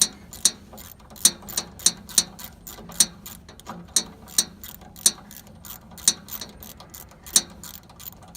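Socket ratchet wrench clicking as it is worked back and forth, a steady run of sharp clicks several a second with louder clicks every half second to a second, as it turns a guide-roller adjusting bolt on a sawmill.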